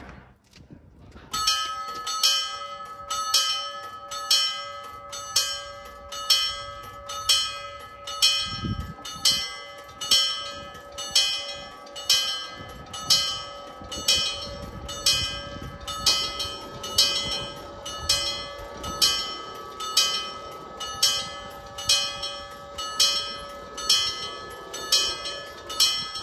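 Railway level-crossing warning bell striking steadily about twice a second, each stroke ringing on into the next. It starts about a second in. It signals an approaching train while the crossing barriers lower.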